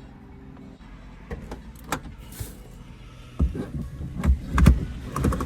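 Scattered clicks and knocks of handling inside a car, turning into heavier low thumps about three and a half seconds in.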